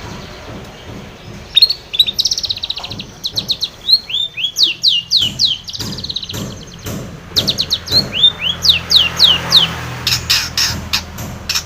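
Long-tailed shrike (cendet) singing a fast, varied song of chattering trills and sharp down-slurred whistles, starting about a second and a half in.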